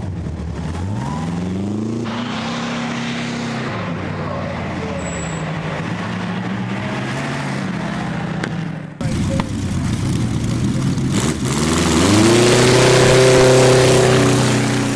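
Napier-Bentley's 24-litre Napier Lion W12 aero engine revving up and dropping back as it accelerates. After a break, the engine revs up hard and holds high during a smoky rear-wheel spin, loudest near the end.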